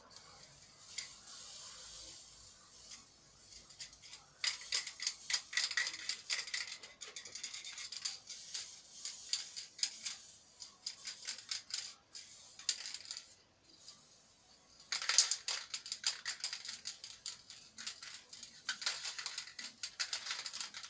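Bursts of scratchy clicking and rattling, several seconds each with quieter gaps between, as paint is worked onto the metal stand of a floor lamp.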